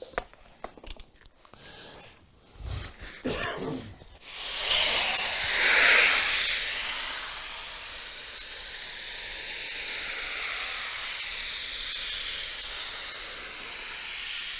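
A few small clicks and handling noises, then about four seconds in a loud gas-spraying hiss starts suddenly and carries on steadily for about ten seconds, easing off near the end. It is a foley effect for gas being sprayed out.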